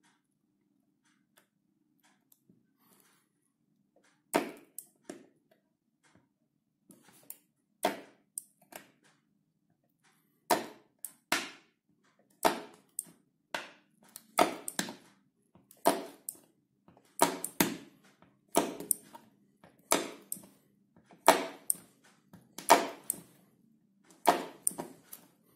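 Spot welds fired through the electrodes of a ZBU-4.2 hand-held electrode holder pressed onto thin metal strip, each press tripping the holder's built-in microswitch in place of a foot pedal. The welds are a series of sharp snaps, starting about four seconds in and coming roughly once a second, many in close pairs.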